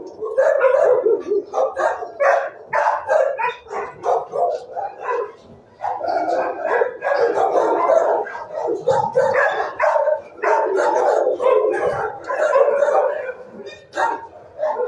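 Dogs barking almost without pause in shelter kennels, the barks loud and overlapping.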